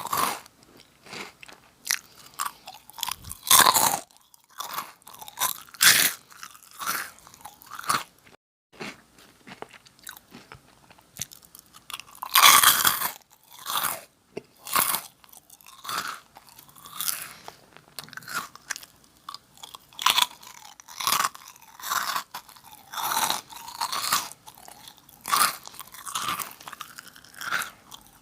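Close-miked crunching and chewing of Nongshim Jagalchi crackers, with quick irregular crunches one or two a second and two louder bites, near 4 seconds and about 13 seconds in.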